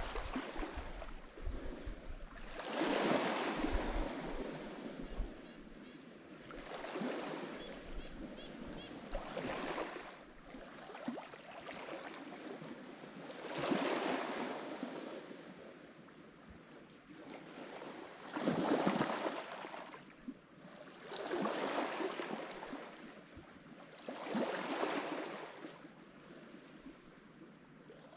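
Lake Michigan waves breaking on the shore, one surge of surf after another every three to five seconds, about seven in all, each swelling and then washing away.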